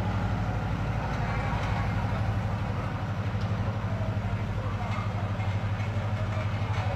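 Road-works machinery running steadily: a loud, low engine-like drone with a fast, even pulse.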